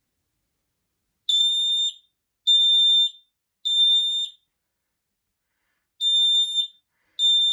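Smoke alarm sounding under test: loud, high-pitched beeps in groups of three, the temporal-three evacuation pattern. A group of three starts about a second in, then after a pause of about a second and a half the next group begins near the end.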